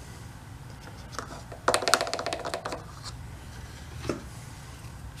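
Small hard parts being handled: a quick run of light clicks and rattles about two seconds in, then a single click, over a low steady hum.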